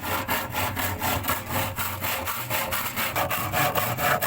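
Wood being sawn or rasped with quick, regular strokes, about five a second, over a steady low hum.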